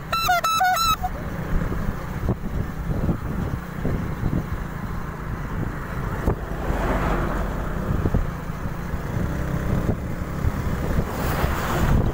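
Wind buffeting the microphone: a steady low rumble that rises and falls in gusts.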